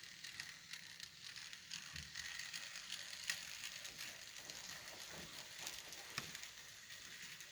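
N scale model locomotives running on layout track: a faint, steady hissing rattle with many small clicks from the wheels and motor.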